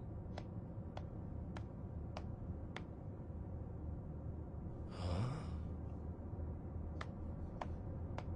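Cartoon footstep effects: light, evenly spaced clicks about every 0.6 seconds, five in a row, then three more near the end. About five seconds in there is a short breathy sigh, over a faint low steady background drone.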